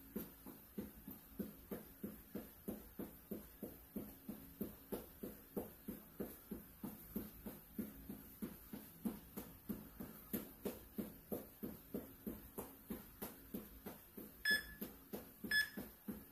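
Sneakered feet jogging in place on a hard floor, an even patter of soft footfalls at about three steps a second. Near the end an interval timer gives two short countdown beeps, a second apart, signalling that the work interval is about to end.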